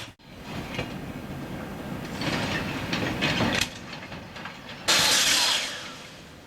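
Freight wagons rolling through a hump-yard rail brake (retarder), with rumbling and clattering. About five seconds in a sudden loud hiss starts and fades over the next second, and no high-pitched brake squeal is heard.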